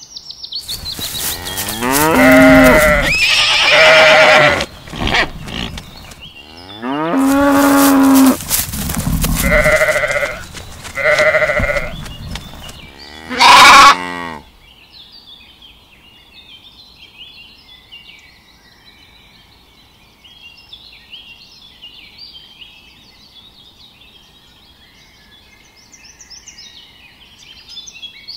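Farm animal calls: a string of loud cattle moos and bleats through the first half, some falling in pitch. After that, faint birdsong chirping runs to the end.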